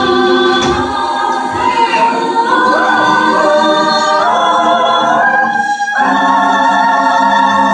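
A cappella group singing sustained wordless chords in close harmony, with a few sliding vocal lines, moving to a new chord about six seconds in.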